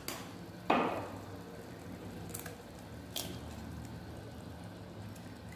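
Eggs being cracked by hand into a pan of thick tomato curry: one sharp crack of shell about a second in, then a couple of lighter taps.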